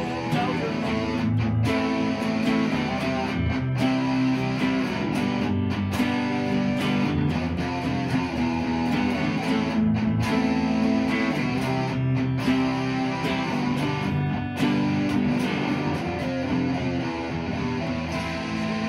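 Epiphone Les Paul Studio electric guitar playing an instrumental passage of the song over a full backing track, with a few brief stops in the music.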